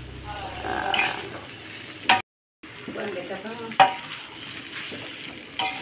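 Wooden spatula stirring and scraping fried rice around a metal wok, the rice sizzling in the oil, with a handful of sharper scrapes against the pan. The sound cuts out completely for a moment a little over two seconds in.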